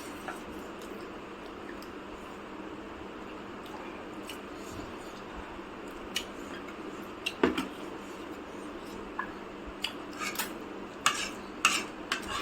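Cutlery clinking and tapping on plates during a meal: a few scattered clinks around the middle and a quick cluster near the end, over a steady background hum.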